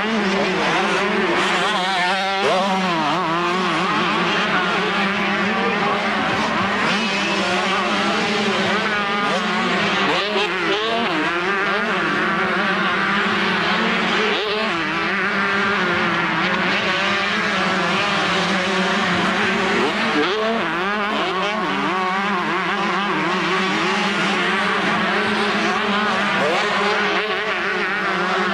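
Several two-stroke motocross bikes racing together, their engines revving up and down over and across one another without a break.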